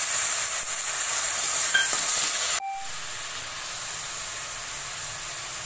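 Chopped onion, capsicum and beetroot sizzling in hot mustard oil in a kadhai, with the ginger-garlic paste just added. The loud hiss drops suddenly about two and a half seconds in, then goes on as a quieter steady sizzle.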